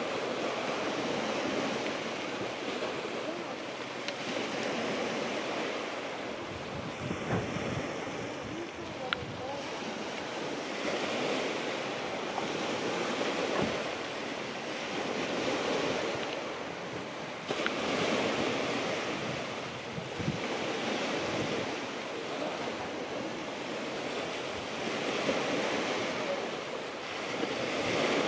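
Sea waves breaking and washing on the beach, swelling and easing every few seconds, with wind on the microphone.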